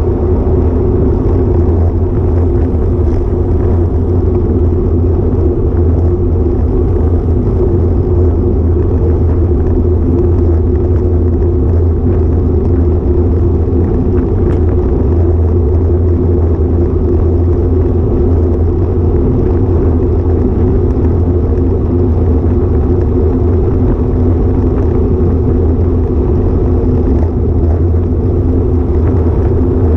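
Steady rumble of wind buffeting and road noise on an action camera riding on a road bike at speed, loud and unbroken throughout.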